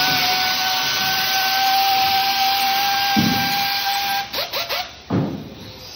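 Fiberglass chopper gun spraying chopped glass strands and resin onto a boat mold: a steady loud hiss with a steady whine, cutting off about four seconds in, followed by a few brief spurts.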